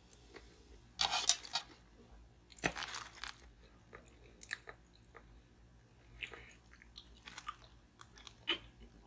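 Close-miked mouth sounds of chewing and crunching, with a plastic water bottle handled and drunk from. Two short crackly bursts come in the first few seconds, then quieter scattered clicks.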